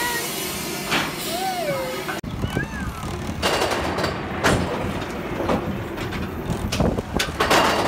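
Expedition Everest roller coaster train climbing its lift hill: a steady rumble from the cars on the track with several irregular loud clanks. Before it, a steady hum with a few high gliding chirps.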